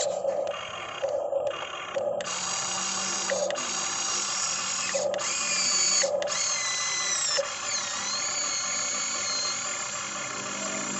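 Small electric motors of a radio-controlled excavator whining as it is worked, cutting out and restarting several times. Later the whine runs on longer, its pitch sliding up and down as the motor speed changes.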